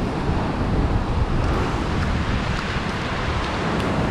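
Sea surf washing and breaking against shoreline rocks, a steady rushing with low rumble, mixed with wind buffeting the microphone.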